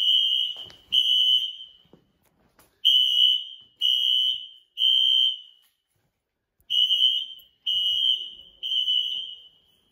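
Building fire alarm sounding its evacuation signal: a high-pitched tone pulsing in groups of three, each pulse just under a second long, with a pause of about a second between groups (the temporal-three pattern).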